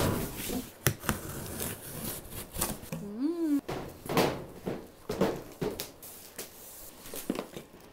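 Cardboard shipping boxes being handled and opened: flaps rustling and boxes knocking and scraping as they are set down and unpacked, in a string of short irregular knocks and rustles.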